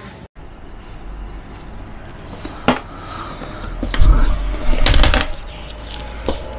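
Small plastic and metal accessories (a USB-C adapter and charging cable) clicking as they are handled, then knocks and rubbing of a cardboard box being handled, loudest about four to five seconds in.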